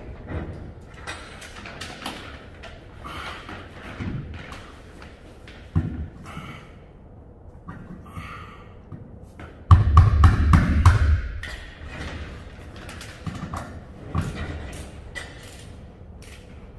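Scattered knocks and thumps from work on a reefer trailer's hanging ceiling air chute from a ladder, with a quick run of about half a dozen heavy knocks about ten seconds in.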